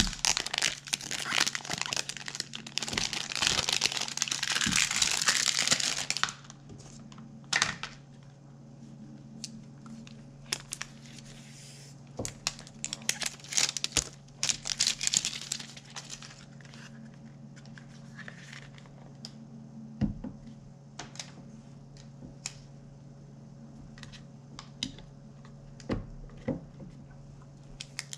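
Plastic protective wrap being peeled and crinkled off an Apple TV 4K unit. Dense crinkling for about the first six seconds, then scattered crinkles and small handling clicks, over a steady low hum.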